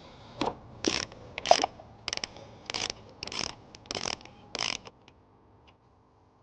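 Ratchet with a 15mm socket loosening the nut on a car battery terminal: about eight short ratcheting bursts in a steady back-and-forth rhythm, stopping near the end.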